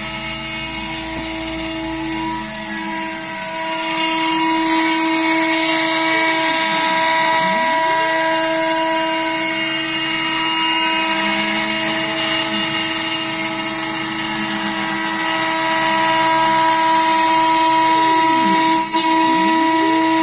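CNC router spindle running with a steady high whine as it cuts a speaker front panel. Tones glide down and back up in pitch several times as the machine moves. It gets louder about four seconds in and again near the end, with a brief dip shortly before the end.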